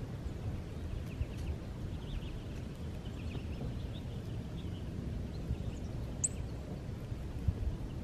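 Soft, scattered twittering chirps of a feeding flock of American goldfinches, with one sharper, higher chirp about six seconds in, over a steady low rumble.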